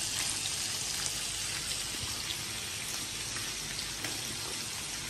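Meat sizzling on a tabletop barbecue grill: a steady hiss with small, scattered crackles.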